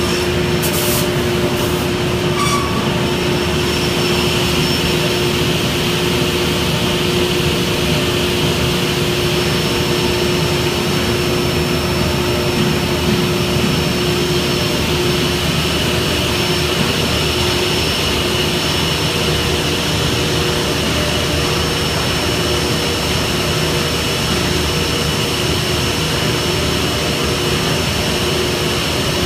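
Industrial woodworking machinery running in a panel shop: a steady drone with a steady high whine and no change in load. A few short clicks come in the first few seconds.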